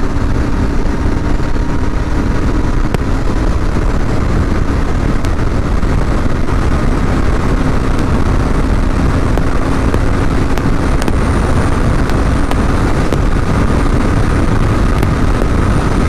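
Royal Enfield Continental GT 650 parallel-twin engine held wide open in sixth gear at high speed, mixed with heavy wind rush on the microphone. The engine note is a steady drone that climbs slowly in pitch as the bike keeps gaining speed.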